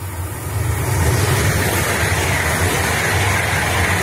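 Frecciarossa high-speed electric train passing through at speed, a low rumble of wheels on rail with a rushing hiss of air. It swells over the first second as the train arrives, then holds loud and steady as the carriages go by.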